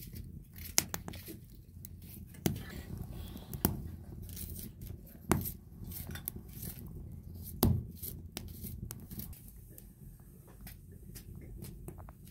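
Irregular clinks and knocks of cooking pots, dishes and utensils being handled, with a handful of sharper strikes among them.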